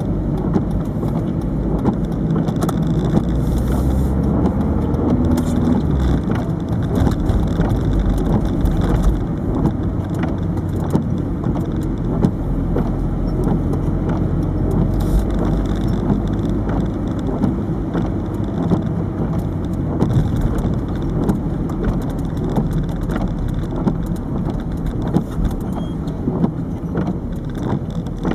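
Cabin sound of a 1998 Peugeot 306 turbo diesel on the move: steady engine and road noise, with the engine note changing about six seconds in. Frequent small rattling clicks throughout come from the dash-mounted camera rattling against the dashboard.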